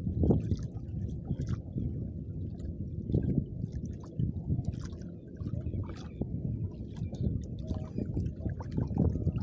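Water sloshing and slapping against a small fishing boat's hull in choppy sea, swelling every few seconds, over a low, uneven rumble of wind.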